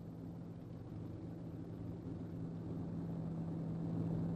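Motor vehicle engine running with a steady low drone, growing louder toward the end.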